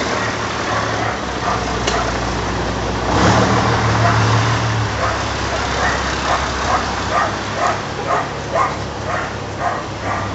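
Street traffic with a vehicle engine running steadily, swelling louder for a couple of seconds about three seconds in. From about halfway through, a dog barks repeatedly, roughly twice a second.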